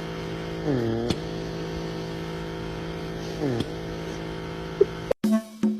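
A motor running with a steady hum, its pitch dipping and recovering twice, with a click about a second in.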